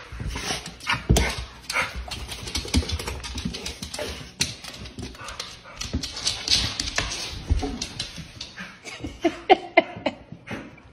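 A dog rolling and wriggling on its back on a hard floor, with rapid scuffing and claw clicks throughout and a few short whines about nine seconds in.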